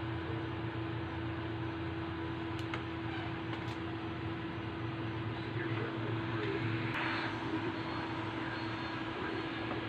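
Steady room noise: a constant hum and hiss with one faint unchanging tone, like a fan running, and a few light clicks.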